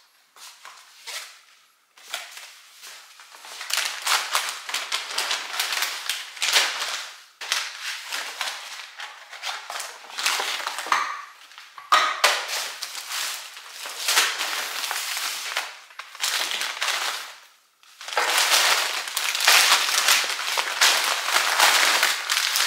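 Crinkling and rustling of plastic grocery packaging and reusable shopping bags as groceries are unpacked and set on a counter, with small clicks and knocks, in several stretches broken by short pauses.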